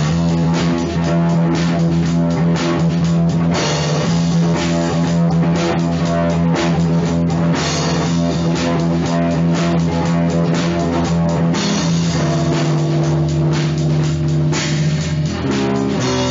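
Rock band music with electric guitar and drum kit, playing without a break.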